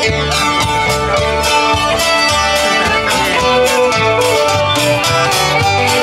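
Live country band playing an instrumental passage: fiddle and guitars over a bass line and a steady drum beat.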